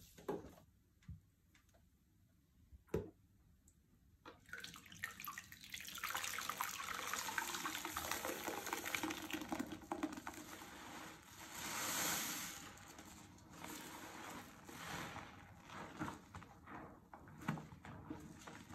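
A sponge soaked in dish soap and washing powder being squeezed and kneaded in a sink of sudsy water: wet squelching and sloshing of thick lather, with foam dripping back into the basin. It starts about four seconds in, after a near-quiet stretch with a couple of light knocks.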